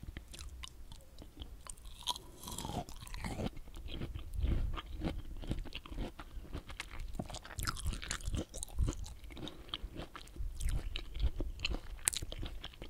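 Pomelo being chewed right at the microphone: close, irregular crunching and clicking of the fruit in the mouth.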